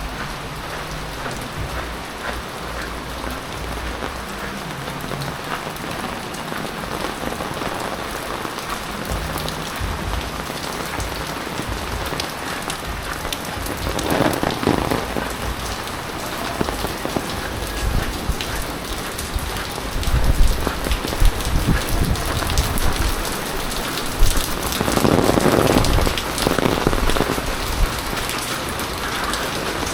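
Heavy typhoon rain falling and striking nearby surfaces, a steady rush of rain dense with individual drop hits. It swells louder about halfway through and again in the last third.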